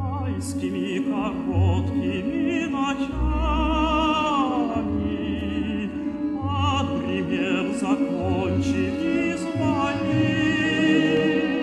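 Background music: a classical-style vocal piece, a singer with strong vibrato over sustained orchestral accompaniment.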